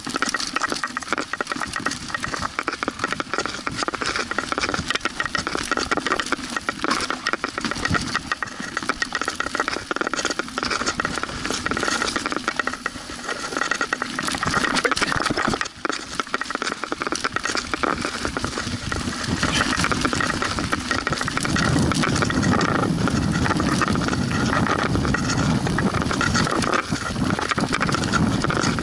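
Mountain bike descending a rough forest trail, rattling and clattering without a break as the tyres run over dirt, roots and stones. About two-thirds of the way in, a heavier low rumble joins the rattle.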